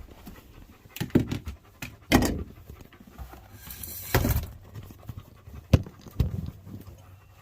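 A dog panting, with several scattered knocks and clatters of handling during it, one sharp knock late on.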